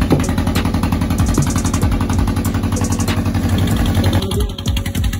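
An engine running steadily with a fast, even low beat and some clatter; the higher-pitched noise over it falls away about four seconds in.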